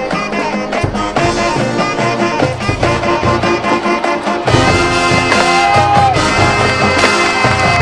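Marching band playing a halftime show, with brass and drums. The full band comes in louder about four and a half seconds in.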